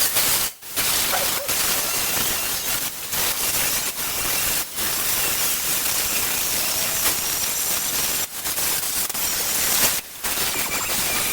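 Welding arc crackling and hissing on a Vespa's steel body panel in long runs, broken four times by short pauses between beads.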